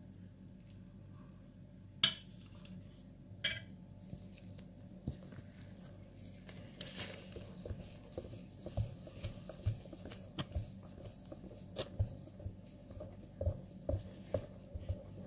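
A utensil stirring egg-and-sugar batter in a mixing bowl: two sharp taps on the bowl about two and three and a half seconds in, then from about halfway an irregular run of clinks and knocks against the bowl as the mixing goes on.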